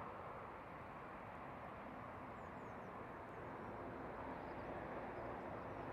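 Steady outdoor riverbank ambience: an even rushing hiss of wind and flowing river water, with a few faint high bird chirps.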